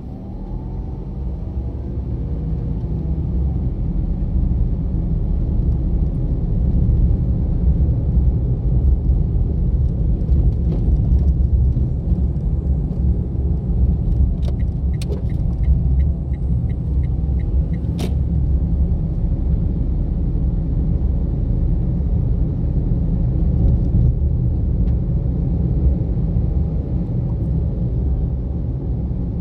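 A car driving along a forest road: a steady low rumble of engine and tyres that grows louder over the first several seconds and then holds. A few sharp knocks sound about halfway through.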